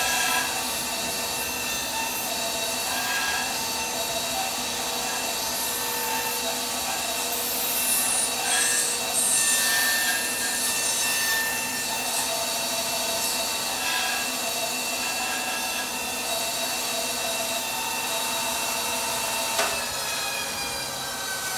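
Laguna 14|12 bandsaw running with a steady hum and whine, its blade cutting into a dovetail pin board in short passes to clear the waste. Near the end the saw's tone falls in pitch as it winds down.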